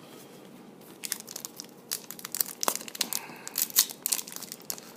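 Foil trading-card pack wrapper crinkling and tearing, a dense run of fine crackles that starts about a second in.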